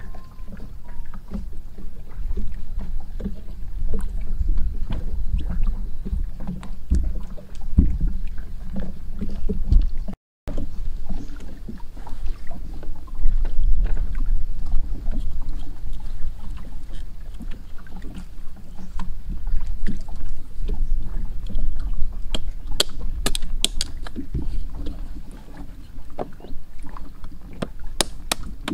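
A steady low rumble is the loudest sound throughout. Over it come light cracks and snaps of dry twigs being laid as fire kindling, and near the end a couple of sharp knocks of a hatchet on wood.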